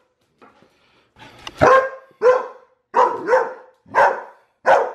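A white short-haired dog barking, about six short, loud barks starting a second and a half in, two of them close together in the middle.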